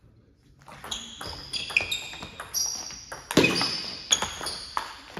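Table tennis rally: the ball clicking off the bats and the table in quick succession, starting about a second in, each hit giving a short ringing ping that echoes around a large sports hall.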